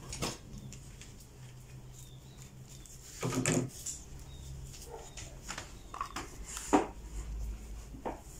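Banana leaf being folded and pressed by hand into a wrapper, with crinkling rustles and scattered sharp clicks. A short, louder low sound comes about three seconds in.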